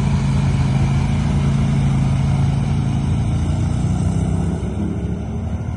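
ATV (quad bike) engine running as it drives through shallow water, with the rush of splashing spray over it. The engine note fades a little near the end as it pulls away.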